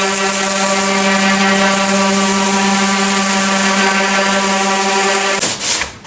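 Electric power tool motor running at a steady pitch, cutting off about five and a half seconds in, followed by a few short rubbing strokes on wood.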